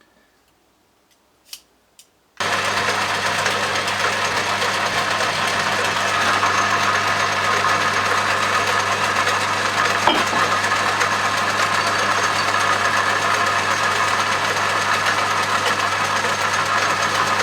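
A few light clicks, then about two seconds in a metal lathe starts up abruptly and runs steadily at speed, its motor and gearing making a loud even hum.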